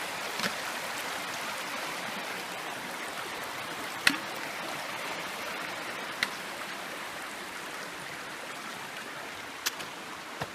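Creek water rushing steadily over rocks, with a few short sharp clicks: the loudest about four seconds in, others around six seconds and near the end.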